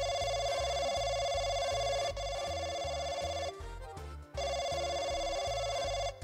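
A mobile phone ringing: a loud, steady, buzzy electronic tone that breaks off for under a second after about three and a half seconds, then rings again. Background music with a steady low beat plays underneath.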